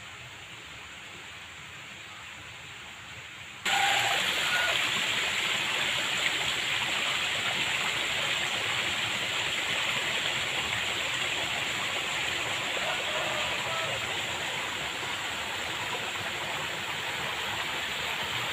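Steady rushing of flowing water in a small irrigation ditch, starting suddenly about four seconds in after a faint hiss, with a few faint chirps.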